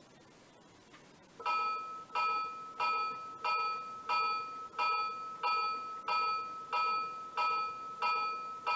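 Simulated locomotive bell from a Williams PA-1 model diesel's sound system, ringing steadily at about one and a half dings a second and starting about a second and a half in.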